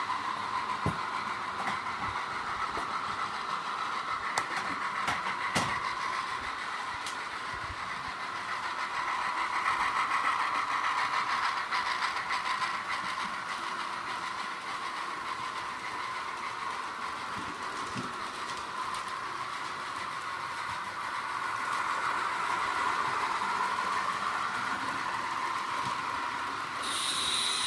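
Hornby OO-gauge model trains running on the layout's track: a steady whirr of motors and wheels on the rails, swelling twice as the trains pass close, with a few sharp clicks from the track in the first seconds.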